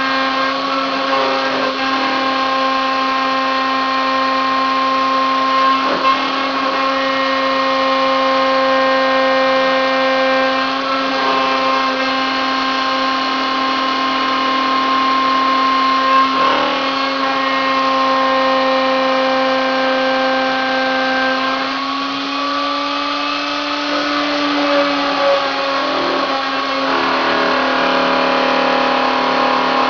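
Wooddy CNC milling machine's spindle running with a steady whine while a 3 mm two-flute end mill cuts steel on shallow passes. The pitch wavers briefly about two-thirds of the way through, and faint ticks come roughly every five seconds.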